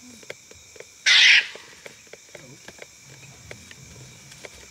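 African wild dogs attacking a white-tailed mongoose: one short, harsh, noisy animal cry about a second in, the loudest sound, with faint scattered ticks and a brief soft call later. Steady chirring insects underneath.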